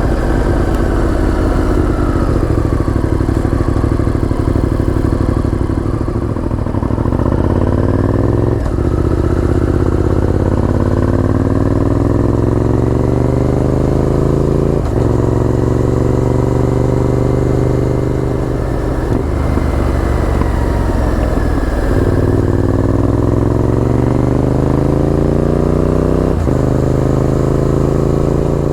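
Honda VTR1000F's 90-degree V-twin engine heard from the bike while riding. The engine note climbs steadily as it pulls, then drops sharply at each gear change, about five times.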